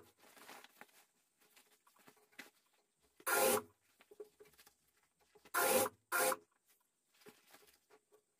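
Industrial sewing machine stitching in three short bursts, about three, five and a half and six seconds in, as a zipper is sewn into a jacket. Between the bursts, the jacket fabric and zipper tape rustle faintly as they are handled under the presser foot.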